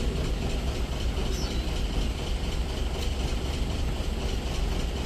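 Loaded diesel truck's engine pulling slowly up a steep loose-gravel incline: a steady low rumble.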